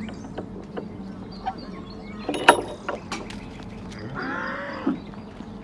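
One short call from cattle near the end, with a sharp knock about halfway through and small clicks and rustles as a calf's rope tether is untied and the calf runs off.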